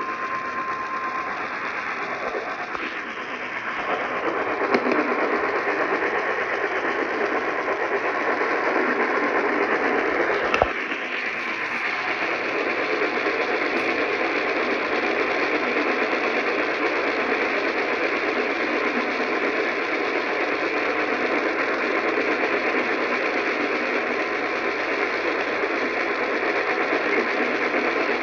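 Radio static: a steady hiss from a radio receiver with no programme on it. A single steady tone cuts off about a second in, and a sharp click comes about ten seconds in.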